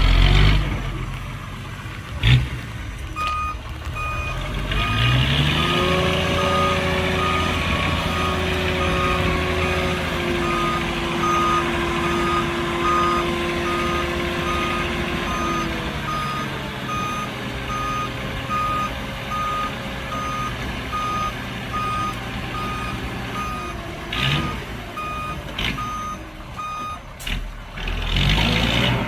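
Reversing alarm on a heavy construction vehicle beeping at an even rate, over its diesel engine running. The engine revs up about five seconds in and eases back later on.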